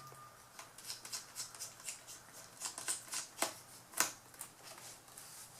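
A screwdriver backing a small screw out of a laptop display frame: light, irregular clicks and ticks, with two louder clicks a little past the middle.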